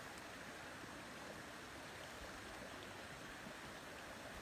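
Faint, steady outdoor ambience: an even rushing hiss with no distinct sounds standing out.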